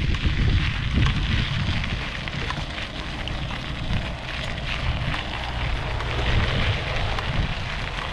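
Wind buffeting the microphone in a steady, fluctuating low rumble, with a fainter crackling hiss above it.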